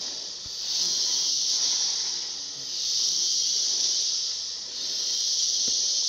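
Insects buzzing in a high hiss that swells and fades in waves about every two seconds.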